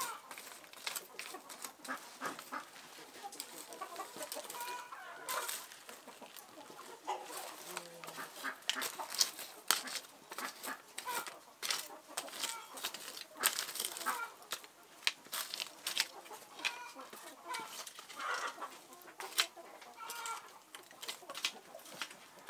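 Chickens clucking now and then over frequent short, sharp crackles and clicks.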